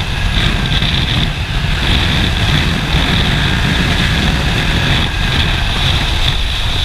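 Motorcycle riding along: steady, loud engine and road noise with a constant rumble.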